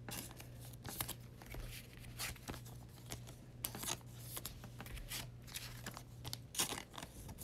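Trading cards being handled and flipped one after another, with soft clicks and the rustle of a clear plastic card sleeve. A faint low hum stops near the end.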